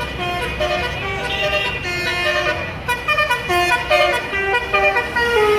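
Bus basuri telolet horn, a multi-note musical air horn, playing a quick melody of stepped notes with several pitches sounding together, over the low rumble of the bus's engine.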